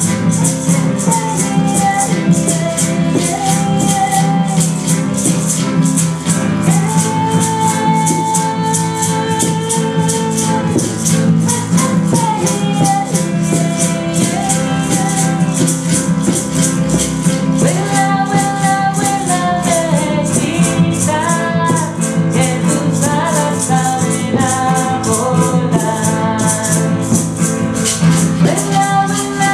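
Acoustic guitar playing over a steady shaker rhythm, with a sustained melody line gliding between held notes above it.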